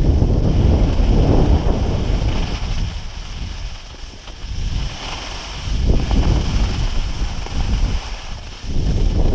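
Wind rushing over the microphone of a skier moving downhill, a heavy low rumble that eases for a couple of seconds in the middle and then builds again, with the hiss of skis sliding on packed, groomed snow.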